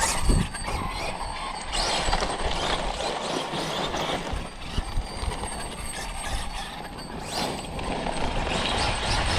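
Losi 5ive-T 3.0 1/5-scale electric RC truck driving on dirt: steady tyre and drivetrain noise that swells and eases as it runs, with a low rumble underneath.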